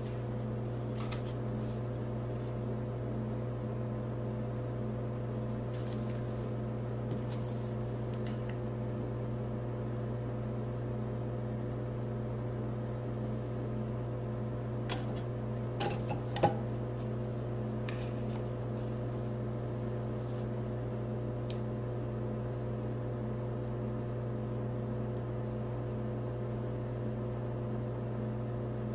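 Steady low electrical hum of a running appliance, with a few light clicks of plastic meters and probes being handled about halfway through.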